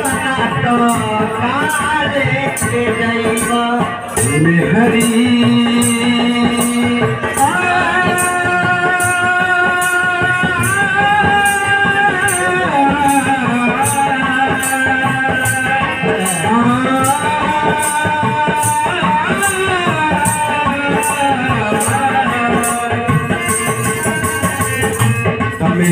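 Live Bhojpuri devotional bhajan: a man sings long, held notes that glide between pitches over harmonium and hand drum, with a steady rattling beat throughout.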